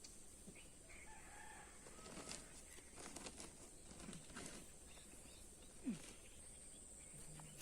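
Faint outdoor ambience with a few soft, scattered bird calls, and one brief sharper sound falling in pitch about six seconds in.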